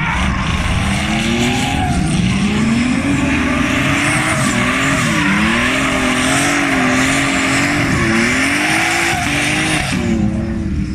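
BMW E46 drift car sliding through a corner, the engine held high in the revs with its pitch rising, then wavering up and down, over a continuous tyre squeal. The squeal stops abruptly near the end while the engine carries on at a lower pitch.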